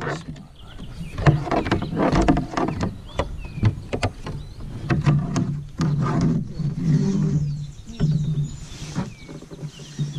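Kayak on the move: paddle strokes with splashes and repeated sharp knocks against the hull.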